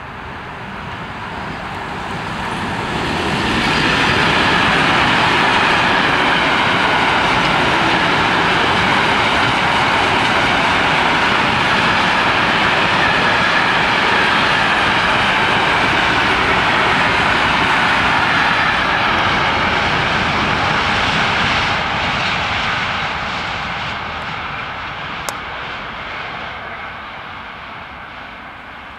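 Electric-hauled container freight train passing close by: the noise of the locomotive and the wheels on the rails builds over the first few seconds, holds steady as the long string of container wagons goes by, then fades away over the last several seconds. A single sharp click comes near the end.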